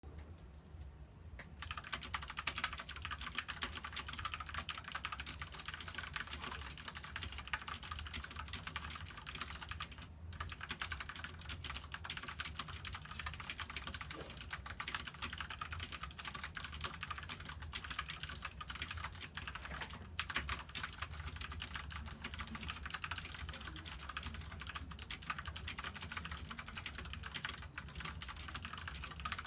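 Fast continuous typing on a Ducky Shine 5 mechanical keyboard with Cherry MX Brown switches, a dense stream of key clacks that begins about a second and a half in and pauses briefly twice.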